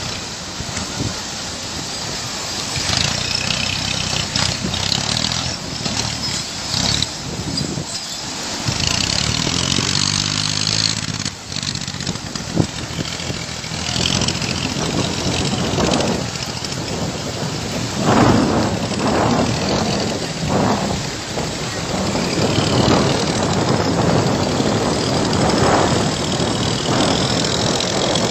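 Tractor engine running under load, its pitch stepping up and down about ten seconds in. From about halfway on, voices call out over it.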